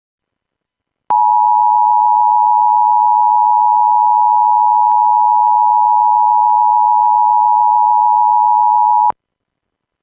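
Emergency Alert System attention signal: one loud, steady tone near 1 kHz that starts about a second in, holds for about eight seconds and cuts off suddenly, announcing the alert message.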